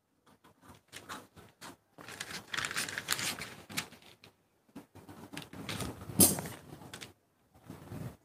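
Pattern paper rustling and crackling as it is handled, in irregular bursts with a sharp, loud crackle about six seconds in.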